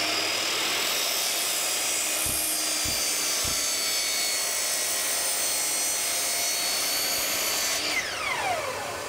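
Bosch mitre saw running at full speed as its blade is lowered through a mitre cut in the wood. Near the end the trigger is released and the blade winds down with a falling whine.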